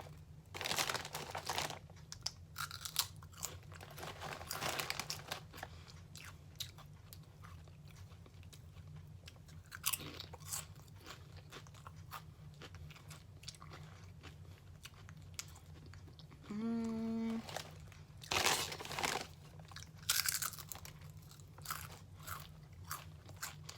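Crunchy potato chips (Lay's Deep Dish Pizza flavour) bitten and chewed close to the microphone, in repeated bouts of crisp crunching with quieter chewing between. A short hummed "mm" about seventeen seconds in.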